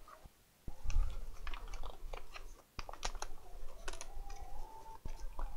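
Clear plastic packaging crinkling and rustling as oscilloscope probes are handled and unwrapped: irregular small crackles and clicks. A faint steady tone sits underneath from about a second in.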